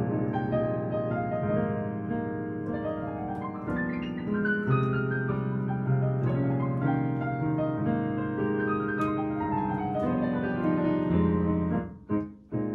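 Solo jazz piano arrangement played on a digital piano: a melody over full chords, pausing briefly near the end with a single short chord in the gap before the playing goes on.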